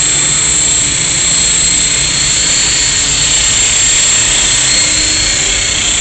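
Esky Belt CPX electric collective-pitch RC helicopter in flight: a steady high-pitched whine from the motor and drive gears over the even rush of the spinning rotor blades.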